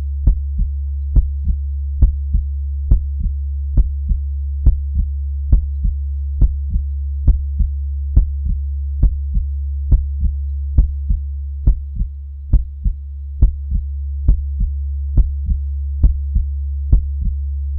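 Heartbeat sound: a slow, steady lub-dub, each strong beat followed closely by a softer one, a little over one beat a second, about 70 a minute. A steady low hum runs under it and dips briefly past the middle.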